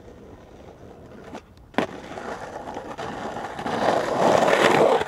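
A skateboard on rough concrete: a sharp clack of the board a little under two seconds in, then its wheels rolling over the concrete, growing louder as it comes closer.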